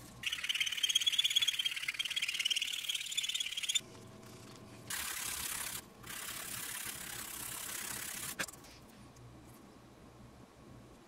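A file scraping across a white oak saxophone mouthpiece: one long rasping scrape with a wavering high whine, then two long strokes, ending in a sharp click.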